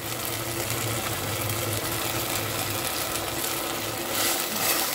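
Chicken in a spicy sauce sizzling in a pan, a steady hiss with a low hum under it; near the end a spatula stirs through it.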